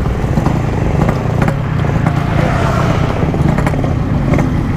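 Yamaha RX-King 135cc two-stroke motorcycle engines running at idle, a steady low drone, as more bikes pull up alongside.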